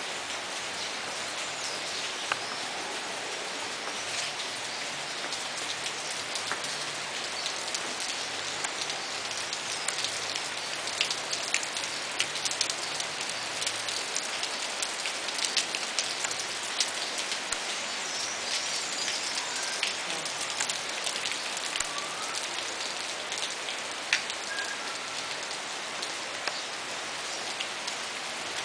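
Steady rain falling on trees and wet ground, a continuous hiss with many sharp drops ticking through it.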